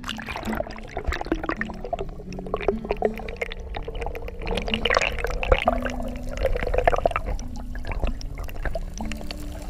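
Shallow river water gurgling and swirling around a GoPro camera held underwater, heard through its waterproof housing, with many small clicks and knocks.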